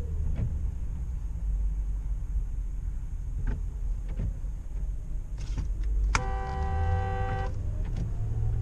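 Steady low road and engine rumble inside a moving Ford Crown Victoria Police Interceptor, with a few faint clicks. About six seconds in, a car horn sounds one steady two-note blast lasting just over a second.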